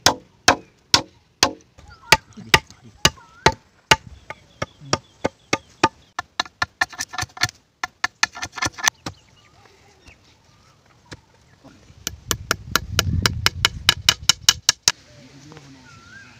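Machete chopping green bamboo: sharp, even strikes about two a second, then quicker runs of blows, with a pause and a final fast flurry of strikes.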